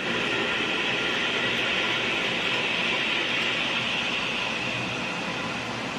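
Heavy rain pouring down steadily, an even hiss without breaks.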